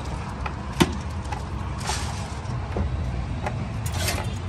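Steady low rumble of street traffic, with a few light taps and knocks as toasted bread slices are laid down one by one on a wooden counter; the sharpest tap comes about a second in.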